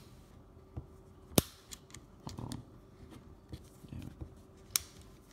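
Spring-loaded quick-release hex chuck of a Ryobi P237 quarter-inch driver clicking as a bit is worked into it. There are two sharp clicks, the louder about a second and a half in and another near the end, with light handling rustle between.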